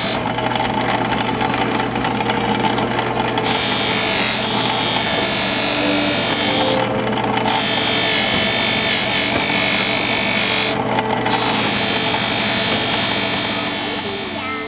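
A drill press runs steadily with a sanding disc in its chuck while a small black tobacco-pipe part is pressed against the spinning disc. The sanding hiss stops briefly three times when the piece is lifted off, while the motor hum carries on.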